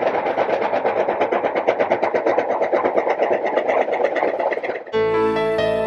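A fast, even mechanical clatter of about ten clicks a second that cuts off suddenly about five seconds in, when piano music begins.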